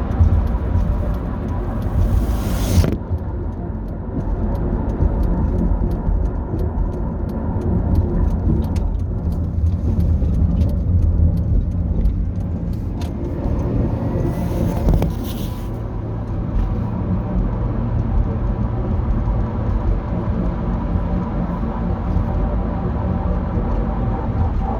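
2008 Dodge Grand Caravan on the move: a steady low rumble and drone with a faint grinding whine, which the owner suspects could be worn differential bearings in the transmission. Two brief swells of hiss rise over it, about two seconds in and again around the fourteen-second mark.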